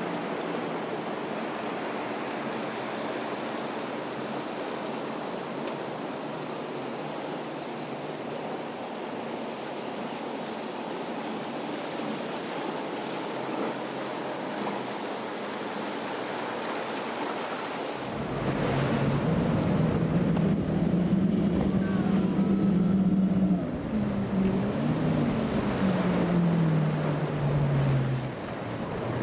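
Surf and wind noise with the drone of boat engines running. Partway through, the sound turns louder and deeper, and an engine's pitch holds steady, then wavers and falls as the throttle changes.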